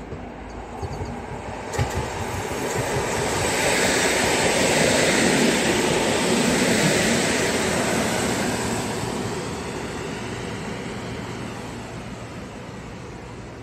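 Electric multiple unit passenger train passing close by at speed: a steady rumble and rail noise that builds up, is loudest midway, then fades as the train moves away, with a couple of sharp clicks about two seconds in.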